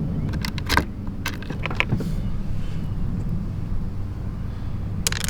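Short bursts of metallic clinking and rattling as a bolt is test-fitted through a freshly drilled hole in a car's center console and the metal frame of a shift boot, over a steady low hum. The clinks come in a cluster about half a second in, another between one and two seconds in, and again near the end.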